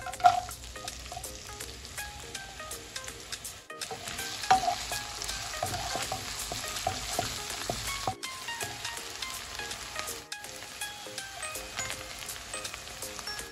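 Chopped onions sizzling in hot oil with cumin seeds in a nonstick kadai, stirred with a wooden spatula that clicks and scrapes against the pan. The sizzle is a steady crackling hiss with a few sharper clicks, and it breaks off for a moment a few times.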